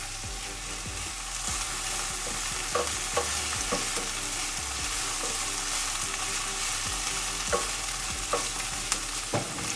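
Sliced onions, peppers and thyme sizzling in oil in a stainless steel frying pan, with a steady hiss, while a wooden spatula stirs them and knocks against the pan a few times.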